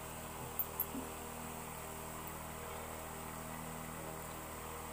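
Steady low hum, with two faint clicks a little over half a second in.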